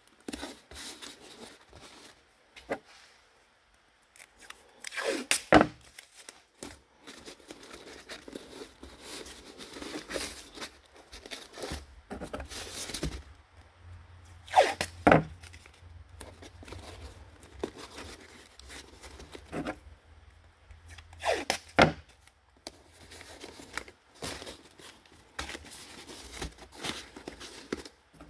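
Blue painter's tape pulled off the roll in three loud quick rips and torn off, between quieter rustling as it is pressed onto a cardboard mock-up.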